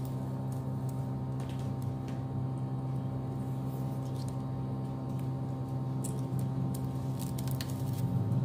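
A steady low hum throughout, with a few faint ticks and rustles of plastic craft wire being wound and pulled tight by hand.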